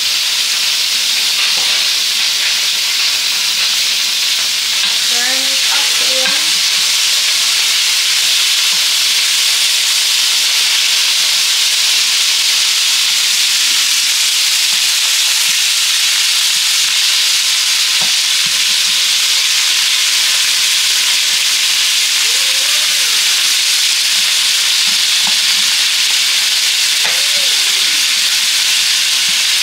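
Food frying in hot oil in a pan: a steady sizzle that holds unbroken, with a few faint clicks.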